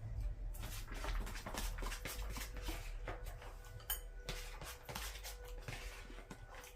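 A spoon scraping and clicking inside a food container in many quick, irregular strokes, getting at the food down at the bottom.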